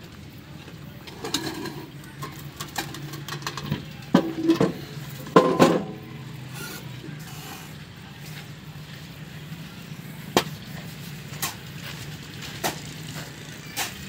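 A steady low machine hum, with sharp metallic knocks and clanks from a steel concrete-pipe mould being handled and set onto the iron rollers of a pipe-spinning machine. The loudest knocks cluster around four to six seconds in.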